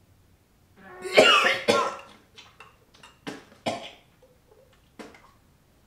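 A man gagging and coughing on a mouthful of food he finds disgusting: one long, loud retching cough about a second in, then a string of shorter coughs.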